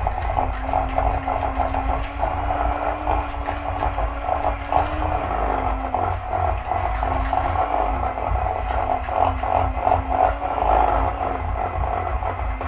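Electric hand mixer running steadily, its beaters creaming softened butter and sugar in a stainless steel bowl: a constant motor whine over a low rumble, with many small clicks of the beaters against the metal bowl.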